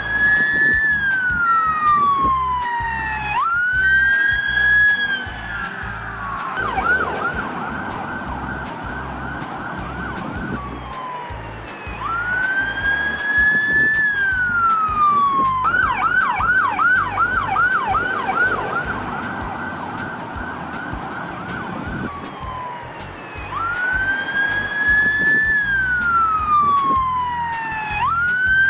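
Electronic emergency-vehicle siren sounding a slow wail, each cycle rising quickly and falling over about three seconds. The wail switches twice to a rapid yelp of quick repeated sweeps, once about seven seconds in and again for about six seconds from the middle.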